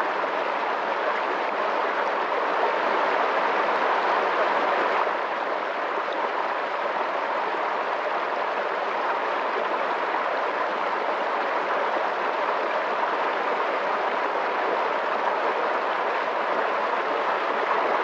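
Swiftly flowing water rushing steadily, an even, continuous rush with a slight dip in level about five seconds in.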